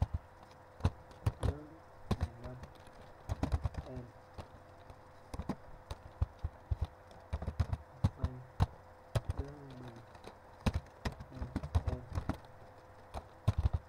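Computer keyboard being typed on in irregular bursts of keystrokes, over a faint steady hum.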